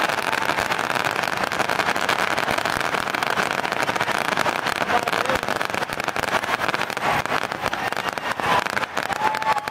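Fireworks crackling and popping in a dense, continuous rattle over crowd noise, with a brief whistle near the end.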